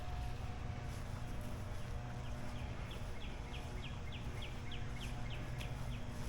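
A songbird singing a run of about a dozen short, clear down-slurred whistled notes, about three a second, starting a couple of seconds in, over a steady low rumble of wind on the microphone.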